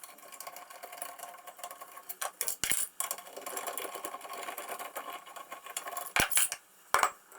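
Small metal parts of an old tram gear shifter clicking, rattling and scraping as they are worked by hand, with a few sharp metal knocks about two and a half, six and seven seconds in.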